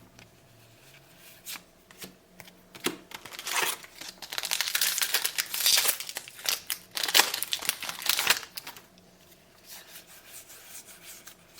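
A trading-card booster pack's wrapper being torn open and crinkled, with scattered light clicks of handling before it and a busy stretch of tearing and rustling through the middle seconds.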